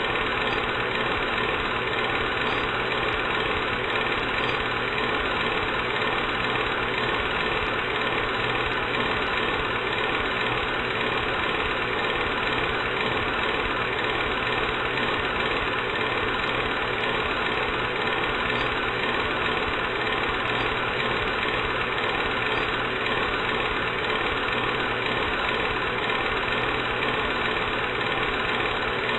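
Film projector running: a steady mechanical whir and clatter that does not let up.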